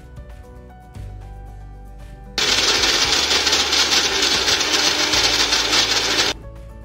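Small countertop blender's motor running at full speed for about four seconds, grinding soft ingredients in its jar to a fine paste. It starts abruptly and cuts off suddenly.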